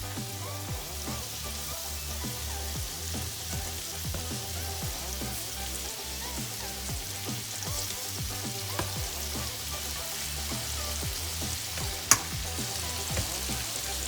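Chicken thighs sizzling steadily in melted butter in a skillet, with one sharp tap near the end. Background music plays along.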